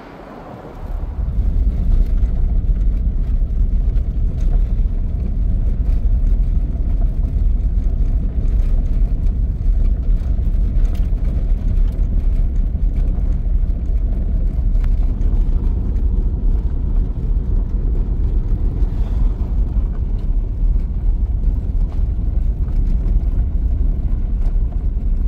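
Steady low rumble of a car driving over a gravel road, heard from inside the cabin; it comes in about a second in and holds even.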